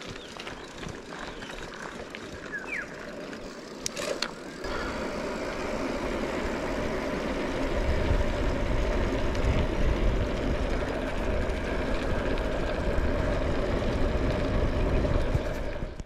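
A rushing, rumbling noise sets in about four seconds in and grows louder, with heavy low rumble from about halfway: wind on a chest-mounted camera's microphone and tyres on a rough trail as a mountain bike picks up speed. A few short bird chirps come before it.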